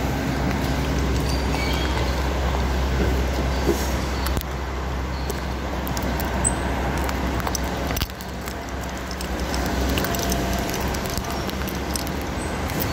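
Road traffic at low speed: vehicle engines running with a steady low hum and scattered light clicks. The hum eases about eight seconds in.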